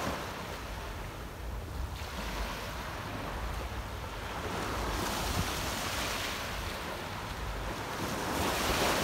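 Small waves breaking and washing up a sand beach, swelling and fading every few seconds, with wind rumbling on the microphone.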